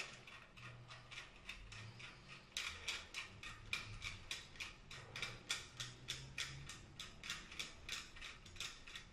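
Screwdriver tightening the long retaining screw that holds the key cylinder in a mortise lock body, making a run of faint, quick clicks. The clicks come about four to five a second and grow more distinct after about two and a half seconds.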